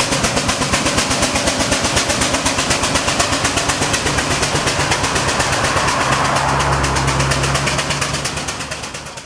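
Steam crane engine working up a hill, its exhaust beating evenly at about five beats a second as it passes and pulls away. A steady low engine hum joins under the beats from about four seconds in, and everything fades near the end.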